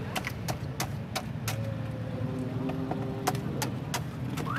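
Steady low traffic rumble with scattered sharp clicks and knocks. A car alarm starts warbling right at the end.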